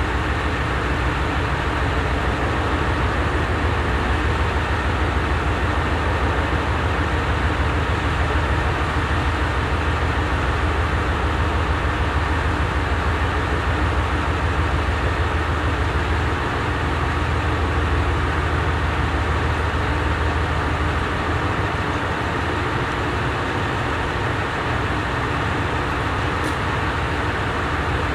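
KiHa 187 series diesel railcar's engine idling steadily while the train stands still, a constant low hum; the lowest part of the hum eases a little about three-quarters of the way through.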